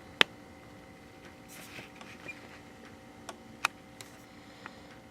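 A few short, sharp clicks and taps of small hard objects being handled, the loudest just after the start, over a faint steady hum.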